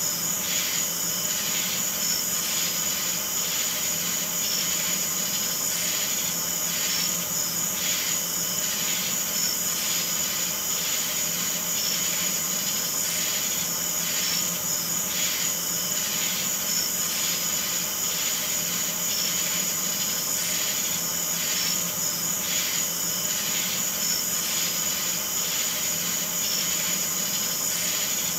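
Chorus of night insects: a steady high-pitched trill under a pulsing call that repeats about twice a second.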